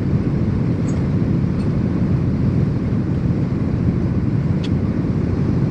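Steady low rumble of a private jet's cabin in flight: engine and airflow noise, with one faint click about four and a half seconds in.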